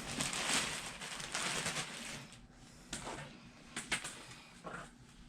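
Rustling of packaging as it is handled for about two seconds, then a few separate light clicks or knocks.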